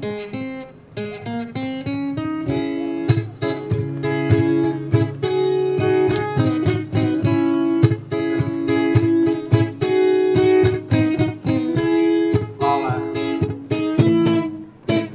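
Acoustic guitar strumming chords in a steady rhythm, an instrumental passage with no singing.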